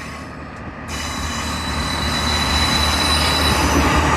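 Class 158 diesel multiple unit pulling away, its underfloor diesel engines running under load and growing steadily louder. A thin high wheel squeal comes in about halfway through.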